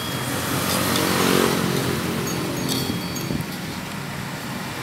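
A road vehicle's engine passing close by, swelling to a peak about a second and a half in and then fading away.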